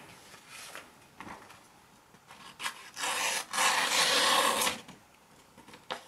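A sheet of paper being sliced with the blade of an Anglo Arms slip-joint pocket knife, a dry papery rustling cut in short strokes a couple of seconds in and then one longer stroke of about a second and a half. It is a slicing test of the knife's factory edge.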